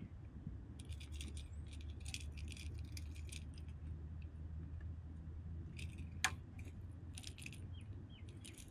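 Light metallic clicking and jingling of a hard-bodied fishing lure and its treble hooks being handled, in two flurries, with one sharper click about six seconds in, over a faint low rumble.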